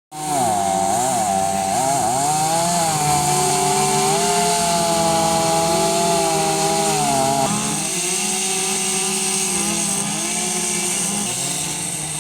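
Chainsaw running and cutting into redwood, its pitch dipping and rising as the chain bites and frees in the cut.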